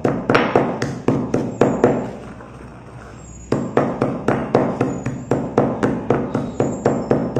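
Stone pestle pounding crushed slate pencils in a stone mortar: quick dull knocks at about four a second. They stop for about a second and a half starting about two seconds in, then resume at the same pace.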